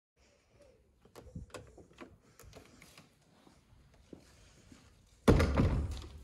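Clicks and knocks of a metal lever door handle being worked, then a sudden loud burst of noise about five seconds in as the door is opened, fading over about a second.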